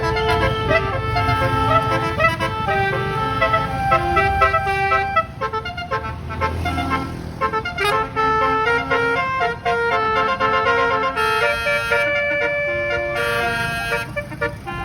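Tour bus basuri horn playing a quick melody of stepped, held notes over the low rumble of the bus engine, dipping briefly near the middle before the tune starts up again.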